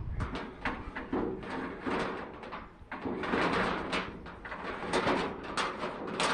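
Irregular scraping, rattling and knocking of a pipe and power cable being handled and pushed through, with many short sharp strikes.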